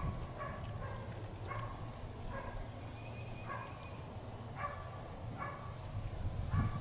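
Hydrant wrench turning the operating nut on an American Flow Control fire hydrant: a string of short squeaks, about one a second with a brief pause midway, over a low steady background noise.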